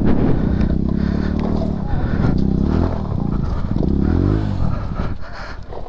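Motorcycle engine revving up and down repeatedly at low speed as the bike labours over rocky off-road ground, its revs climbing and dropping several times.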